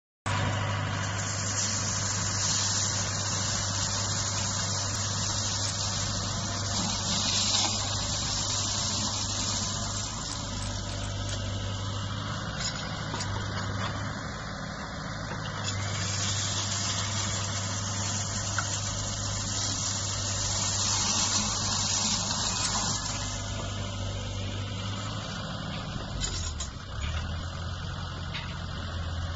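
Doosan mini excavator's diesel engine running steadily with its hydraulic flail mower head spinning as it cuts tall reeds and grass: a constant low hum under a hissing rush that swells several times as the head works into the reeds.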